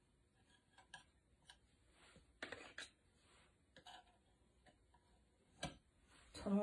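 Quiet, scattered taps and light scrapes of a painting tool dabbing paint onto a wooden board, with one sharper click near the end.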